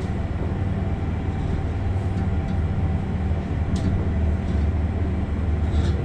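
Diesel railcar running slowly into a station, heard from on board: a steady low rumble and hum, with a faint click near the middle.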